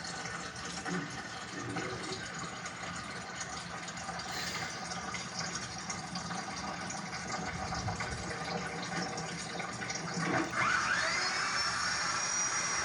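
Heavy rain falling steadily, a dense, even hiss. About ten seconds in, a high whistling tone sweeps up in pitch and then holds.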